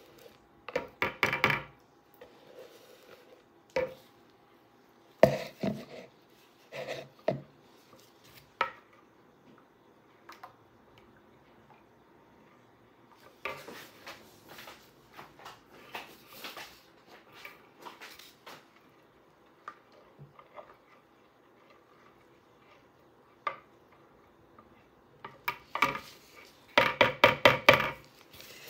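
Silicone spatula stirring and scraping in a glass bowl of soap batter (oils with lye and coconut-milk solution), knocking against the glass now and then. There are bursts of quick strokes about a second in and near the end, with single knocks and softer scrapes between them.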